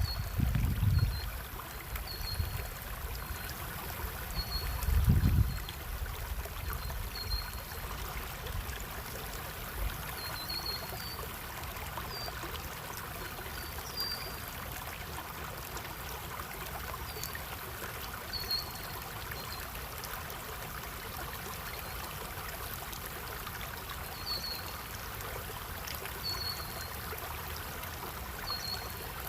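Stream water running steadily, with a short high chirp repeating every second or two. Low rumbles swell in the first second and again about five seconds in.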